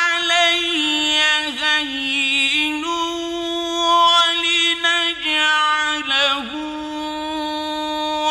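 Male reciter chanting the Quran in the melodic mujawwad (tajweed) style. He holds long drawn-out notes with wavering ornaments, and the pitch steps up and dips several times.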